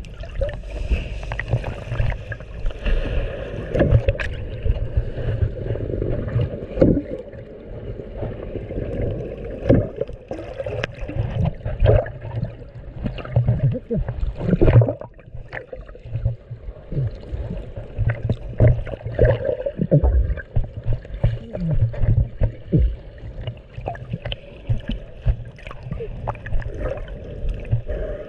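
Muffled underwater sound of water sloshing and gurgling around an action camera held below the surface, with frequent irregular dull knocks and surges as it moves through the water.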